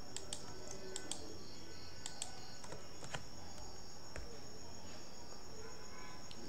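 Computer mouse clicking a few times, mostly in quick pairs, during the first three seconds, over a steady high-pitched background drone.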